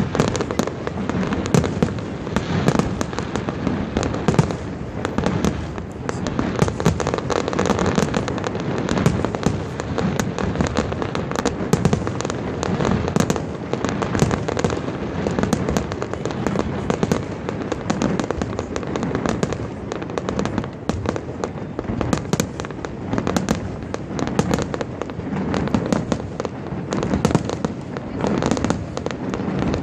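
Fireworks display going off continuously: a dense, unbroken run of shell bursts, bangs and crackles over a steady rumble.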